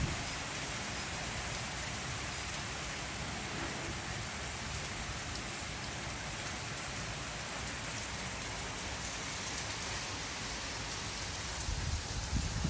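Heavy rain falling steadily, an even hiss of drops hitting the ground and surfaces around. Near the end low rumbling bumps come in, gusts of wind buffeting the microphone.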